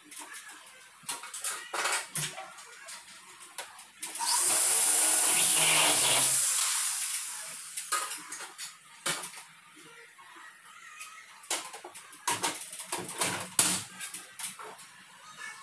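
A handheld power drill runs for about two and a half seconds, starting abruptly and tailing off. Scattered clicks and knocks come from handling the aluminum framing.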